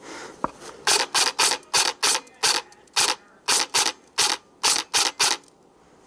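Airsoft gun firing about thirteen rapid single shots, each a sharp mechanical clack, spaced irregularly a quarter to half a second apart, starting about a second in and stopping a little after five seconds.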